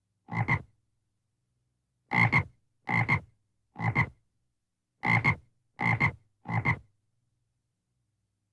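Frog croaking: seven short croaks, each a quick double pulse. The first stands alone and the rest come about a second apart.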